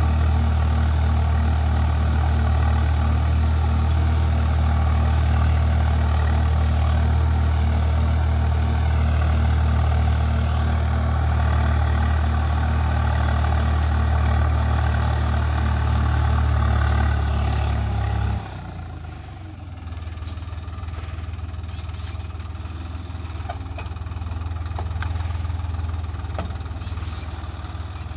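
Farm tractor's diesel engine running steadily under load while pulling a disc plough through soil. About two-thirds of the way through, the engine note drops suddenly to a quieter idle.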